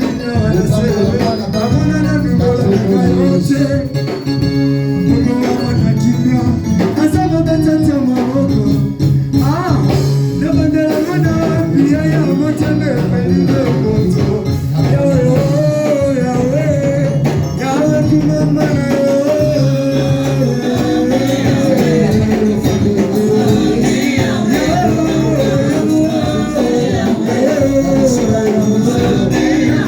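Church worship music: singing over instruments with a steady percussion beat.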